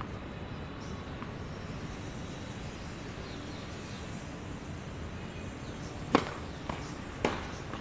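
A tennis serve: the racquet strikes the ball with one sharp hit about six seconds in, followed by a softer knock and a second racquet hit about a second later as the ball is played back. Steady background noise runs underneath.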